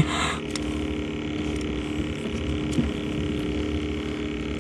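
A small boat's motor running steadily, a constant even hum with a low rumble underneath. There is a short rustle right at the start and a few faint clicks of handling.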